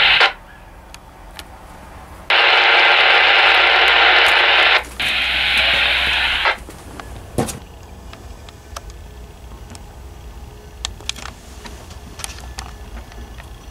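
Baofeng handheld FM radio's speaker: a transmission cuts off just after the start, then loud static hiss comes through twice, each burst switching on and off abruptly, the first about two and a half seconds long and the second about a second and a half. After that it stays quieter, with small clicks and one knock.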